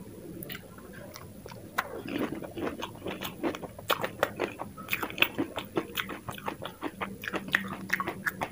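Mouth crunching and chewing a whole dahi puri, the crisp fried puri shell filled with yogurt cracking in many quick, sharp crackles that start about two seconds in.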